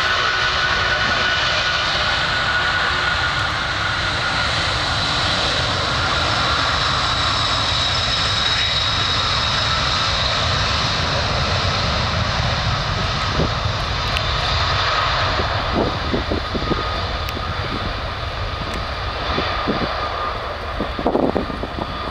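Boeing 747-400's four Rolls-Royce RB211 turbofans at takeoff power on the takeoff roll: a steady jet roar with a whining tone that slowly drops in pitch as the aircraft moves away. Wind buffets the microphone near the end.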